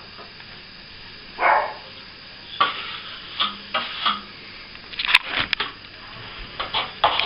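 Intermittent scraping and clicking of a plasterer's tool working setting compound, with short strokes, a cluster of them about five seconds in.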